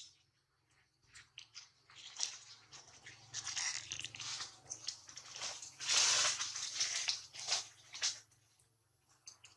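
Large green leaves rustling and crackling as a baby monkey climbs and hangs among them. The rustles come in irregular bursts, loudest about six seconds in, and die away about a second before the end.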